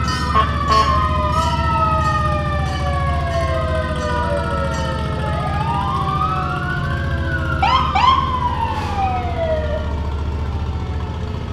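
Emergency-vehicle sirens wailing, several at once, with slow rises and long falls in pitch, over a steady low engine rumble. A few quick yelping whoops come about eight seconds in.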